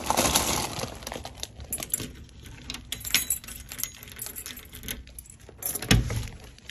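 Keys jangling on a ring and clicking in a front door's deadbolt lock as it is unlocked, a run of small metallic clicks and rattles, with a louder knock at about six seconds.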